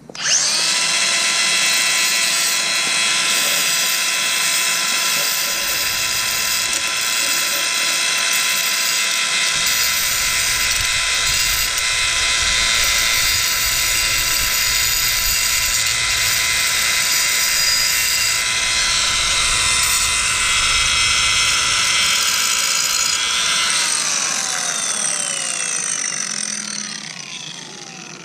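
Milwaukee cordless angle grinder spinning up at once and running steadily at full speed, a high whine, while grinding the cut end of an aluminium ski pole smooth. About 24 seconds in it is switched off and winds down, the whine falling in pitch as the wheel coasts to a stop.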